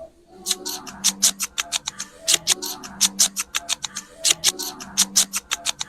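Fingers scrubbing lathered, wet hair during a shampoo: a quick, even run of squishy scrubbing strokes, about six a second, starting about half a second in.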